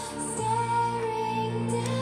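A song with a sung vocal playing through a loudspeaker driven by a small PAM8610 class-D amplifier board, with a strong bass line; the bass note changes about half a second in.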